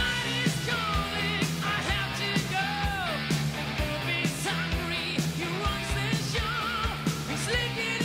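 Background music: a rock song with a singing voice over drums.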